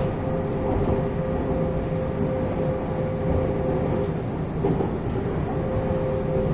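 Interior noise of a TIC Trens Série 9500 electric train car running at speed: a steady rumble from the wheels and track, with a constant hum.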